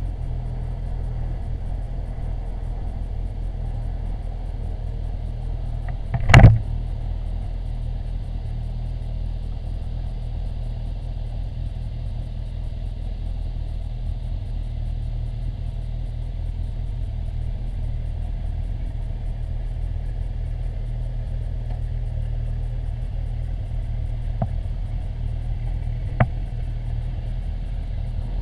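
Motorcycle engine running steadily at low speed through a bike-mounted action camera, a low hum with little change. A single loud, sharp knock comes about six seconds in, and a smaller click near the end.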